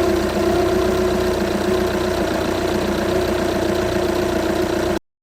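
VW Passat B6 2.0 TDI four-cylinder diesel engine idling steadily after its timing belt replacement, cutting off suddenly near the end.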